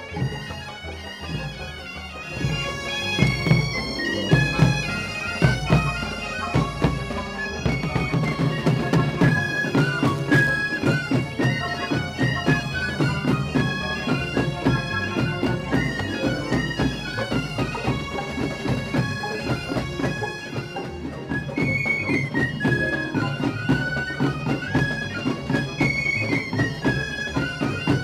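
Traditional wind-instrument music: a piped melody moving over a steady held drone, with light drum strokes. It grows louder about two seconds in.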